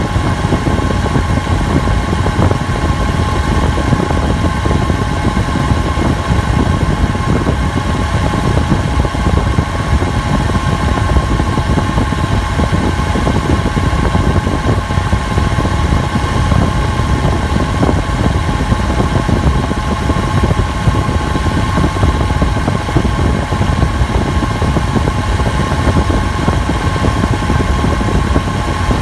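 2004 Toyota Tacoma 3.4-litre V6 idling steadily, heard close to the accessory belt and a pulley, with a steady whine over the engine noise. The owner cannot tell whether the noise comes from the A/C compressor clutch, the compressor or a bearing.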